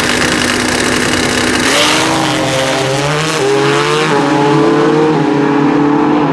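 Pro Street drag motorcycles holding revs on the start line, then launching about two seconds in and accelerating hard. The engine pitch climbs and drops back at each upshift, about three shifts in a row.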